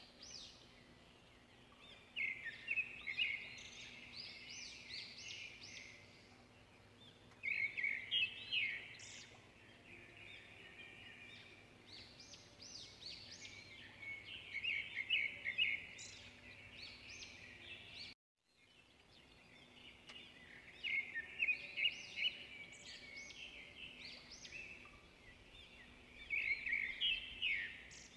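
Small birds chirping in busy bouts of quick, high calls every few seconds, over a faint steady background hum. The sound cuts out completely for a moment about two-thirds of the way through.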